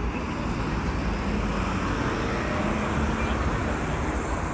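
Road traffic at a city intersection: cars and a taxi driving through close by, a steady traffic noise that swells a little in the middle.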